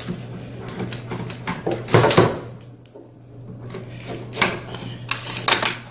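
Handling noise from a telescoping pole-saw extension pole being slid and worked: a few sharp clicks and knocks from its plastic collars and tube sections, about two seconds in and again near the end, over a steady low hum.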